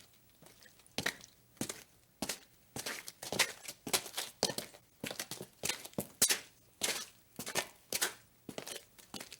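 Footsteps at a steady walking pace, about two steps a second, each step a short sharp scuff. They are faint at first and louder from about a second in.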